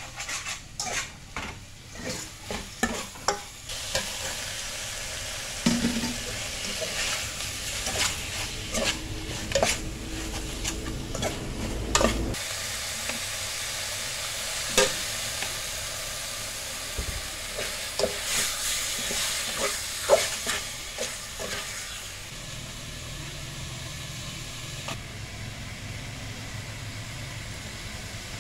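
A metal spoon stirring and scraping in an aluminium pot, with many sharp clinks against the metal, while herb paste and meat sizzle frying in the pot. The sizzle sets in a few seconds in and eases near the end.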